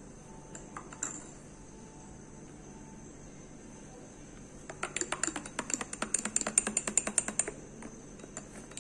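Metal teaspoon stirring coffee in a ceramic mug: a few light taps about a second in, then a fast run of clinks against the mug's sides for about three seconds, tailing off into a few single taps.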